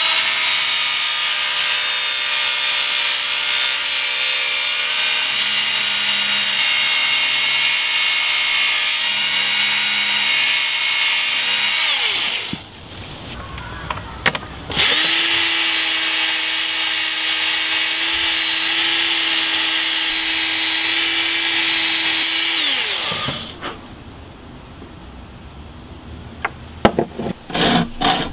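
Handheld rotary tool running at a steady speed on a forged coil-spring knife blade, in two long runs of about twelve and eight seconds with a short pause between. Near the end a hacksaw starts cutting copper plate in quick, even strokes.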